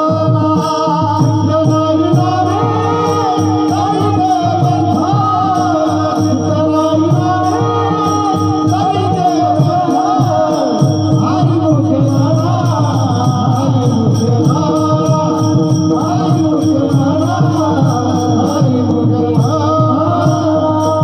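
Kirtan music: a held harmonium-like drone and melody, with hand cymbals striking a steady beat and voices singing an abhang.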